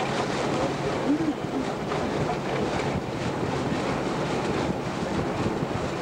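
Wind buffeting the microphone and water rushing past a moving boat, over a steady low engine hum.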